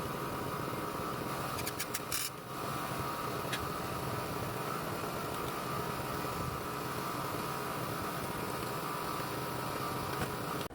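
Newly installed HVAC unit running: a steady fan and motor hum with a high whine, broken by a few quick clicks about two seconds in.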